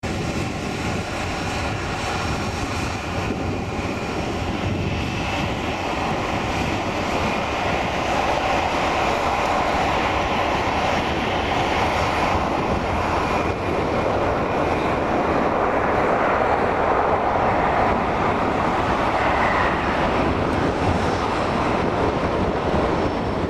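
Jet airliner engines running: a steady, continuous rushing noise that slowly grows louder.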